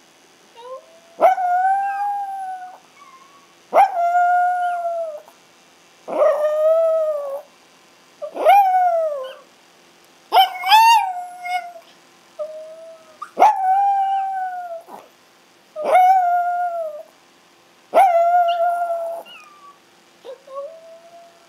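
Chihuahuas howling: a string of about eight long howls about two seconds apart, each rising sharply, holding, then sliding down in pitch. One howl about ten seconds in is higher and wavers.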